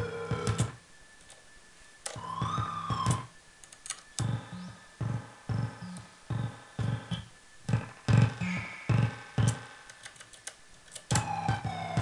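Modular synthesizer playing a sequenced pattern: a DIY doorbell-kit noise module driven by a step sequencer through a Uoki-Toki filter with delay. It plays short low notes at about two a second with gliding pitch sweeps above them, drops out briefly about a second in, and ends on a long falling tone.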